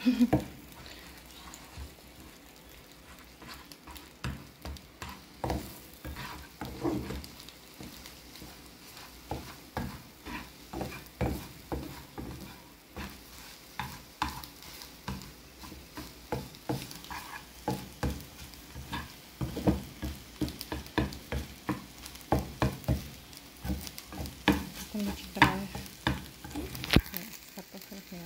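Eggs scrambling in a frying pan, with a faint sizzle under the repeated scrapes and taps of a plastic slotted spatula pushing them across the pan. The scrapes come thicker in the second half.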